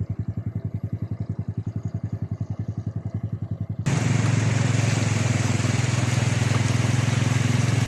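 A motor running with rapid, even pulses, about ten a second. Nearly four seconds in, a cut to a louder, steadier engine sound with a rushing hiss over it.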